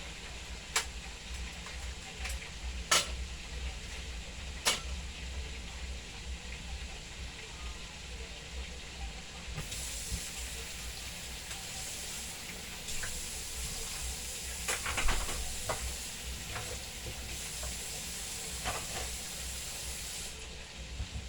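Chicken frying in hot oil: a steady sizzle, with a few sharp clicks and knocks. About ten seconds in, the sizzle turns brighter and hissier, then eases off again shortly before the end.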